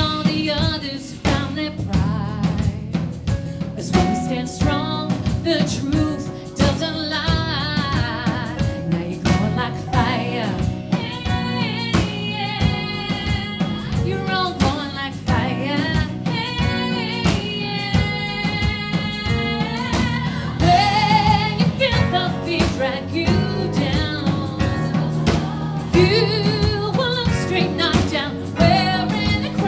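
A woman singing a song live with a band of keyboards, drum kit and bass guitar, the drums keeping a steady beat under her voice.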